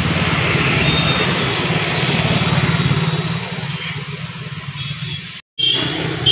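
Motorcycle engine running close by, loudest in the first three seconds and then fading away, over steady street-traffic noise. The sound drops out completely for a split second near the end.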